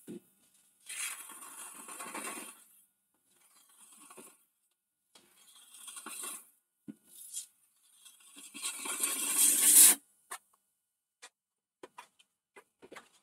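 A hand scraping and rubbing over the rough outside of a holm oak hollow form in several separate bursts, the loudest about three-quarters of the way through, followed by a few light clicks.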